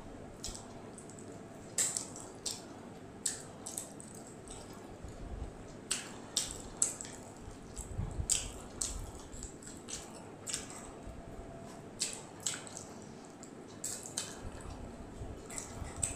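Close-up eating sounds of a person eating by hand: irregular wet smacks and clicks of lips and chewing, about fifteen sharp ones scattered through.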